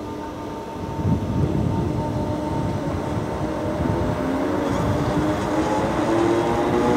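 Two coupled Class 319 electric multiple units pulling away and gathering speed. The traction motors give a whine that rises in pitch and grows louder, over the rumble of the wheels and a few knocks over rail joints.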